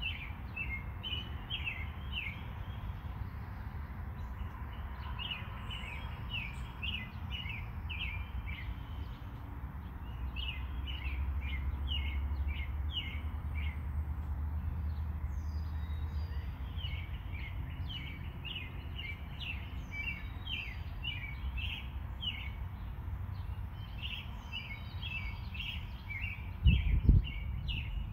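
Small birds chirping in repeated quick runs of short falling notes over a steady low rumble. A single brief thump comes near the end.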